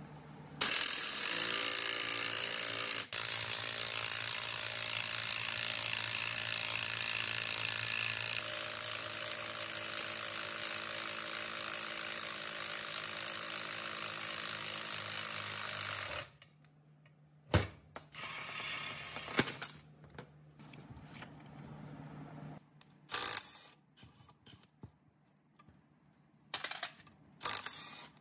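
Cordless impact wrench hammering the centre screw of a gear puller to draw the flywheel pulley off an air compressor's crankshaft. It runs loud and steady for about fifteen seconds, with one brief break near the start, then stops. A few short clanks and knocks of tools and metal parts follow.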